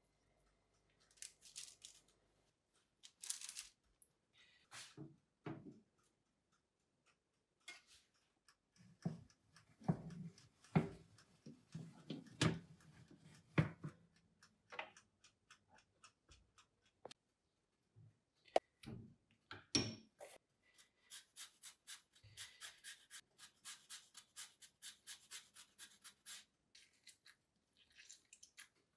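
Scattered clicks, knocks and rustles of kitchen food preparation, with a quick run of light ticks for a few seconds near the end.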